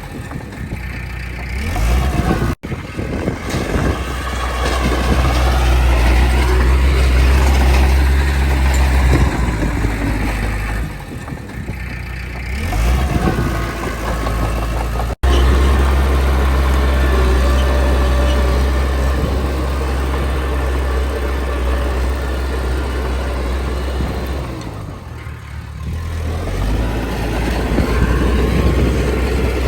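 Diesel engine of earthmoving machinery running under changing load, its low hum rising and falling. Twice it breaks off abruptly for an instant.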